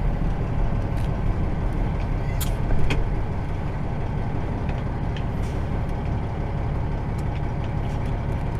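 Semi truck's diesel engine running steadily, heard from inside the cab as a low rumble, with a few light clicks and rattles, the sharpest about two and a half and three seconds in.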